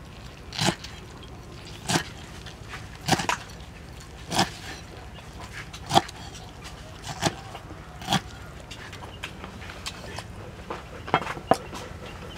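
Cleaver slicing through soft soaked ingredients and knocking on a round wooden chopping board: single knocks about every second and a quarter, with two quick knocks near the end.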